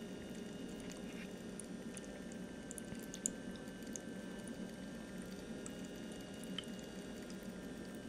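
Desktop waterfall fountain running: thin streams of water trickling from its row of nozzles and splashing into the basin, with a couple of small drips, over the faint steady hum of its small electric pump, running again after its jammed impeller was freed.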